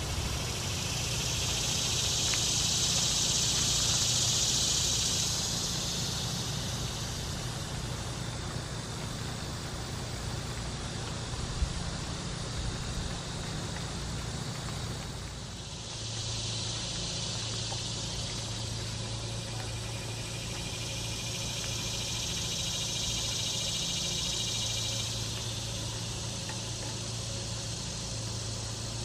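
Cicadas buzzing in long waves that swell and fade, over a low steady hum. A single sharp knock sounds near the middle.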